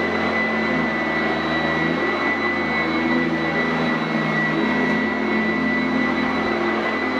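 Sanitaire SC899F commercial upright vacuum cleaner running steadily over carpet, a loud motor noise with a high, steady whine.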